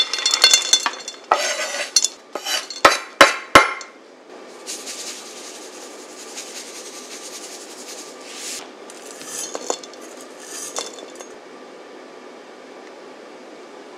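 Chopped chocolate scraped and tipped off a wooden cutting board into a glass mixing bowl, with rattling scrapes and several sharp knocks of the board against the bowl in the first four seconds. Then a soft, steady hiss for about four seconds as salt is poured in from a canister.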